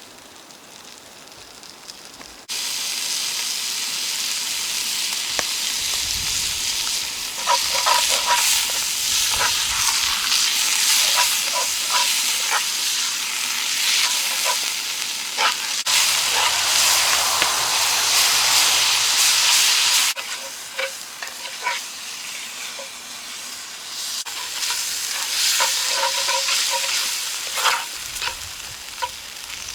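Beef mince sizzling and frying in oil in a cast-iron Dutch oven over a wood fire, with short clinks and scrapes of a utensil stirring it against the pot. The sizzle comes in suddenly about two and a half seconds in and turns quieter about twenty seconds in.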